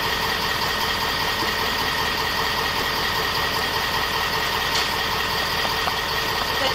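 A steady engine hum with a constant high whine, running evenly without change.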